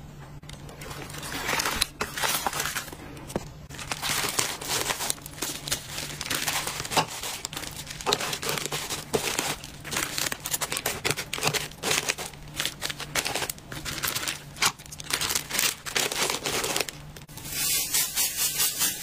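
Plastic packaging and bubble-wrap pouches crinkling and crackling as they are handled and packed, in irregular bursts of sharp rustles. Near the end it changes to a fast, even rustle of shredded crinkle-paper filler being scrunched by hand.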